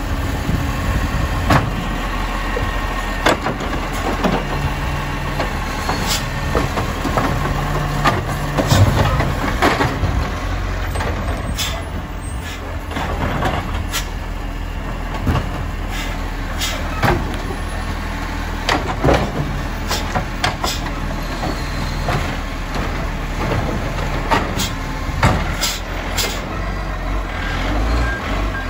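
Side-loader garbage truck's diesel engine running steadily, with repeated sharp clanks and knocks as its mechanical arm picks up and empties wheelie bins.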